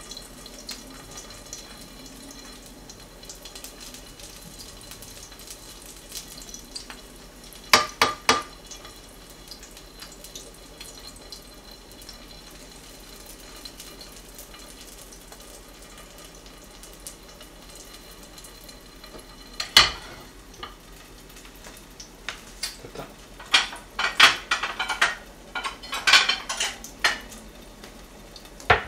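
Mackerel fillet frying with a quiet, steady sizzle in a ceramic-coated frying pan, broken by sharp knocks and scrapes of a wooden spatula against the pan: a quick few about eight seconds in, one near twenty seconds, and a busy run of them over the last five seconds.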